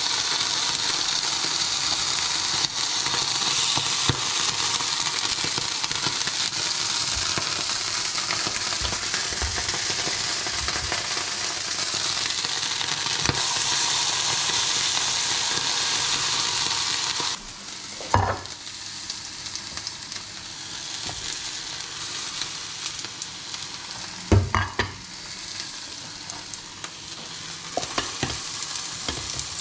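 Hot oil sizzling steadily in a frying pan, first with sirloin steak and then with halved tomatoes. About two-thirds of the way through, the sizzle drops suddenly to a quieter level, with a few sharp knocks of utensils on cookware.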